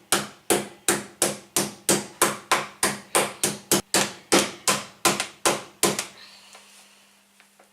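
Meat tenderizer mallet pounding wood duck breast to tenderize and flatten it, in a steady run of sharp blows about three a second that stops about six seconds in.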